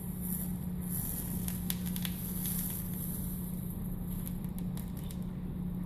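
Flux sizzling and crackling under a hot soldering iron as solder is melted along a glass seam, with a cluster of sharp crackles about two seconds in. A steady low hum runs underneath.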